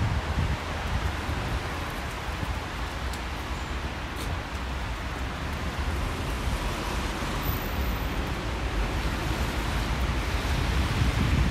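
Steady hiss of wet snow falling on a wet city street, with a low rumble underneath that grows louder near the end.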